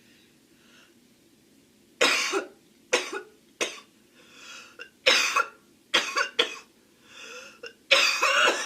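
Girl coughing in short fits, about seven coughs starting about two seconds in, with breaths drawn in between; she puts the cough down to smoking.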